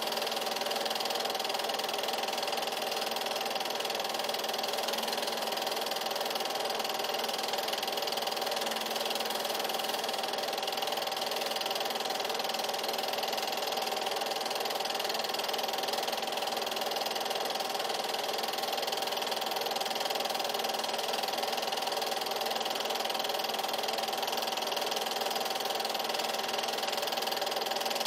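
Steady mechanical whir of an 8mm film projector running, with a constant level and several fixed tones over a hiss.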